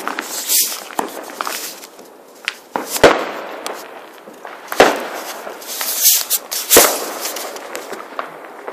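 Fireworks going off: a series of sharp bangs, the loudest about three, five and seven seconds in, with crackling hiss and smaller pops between them.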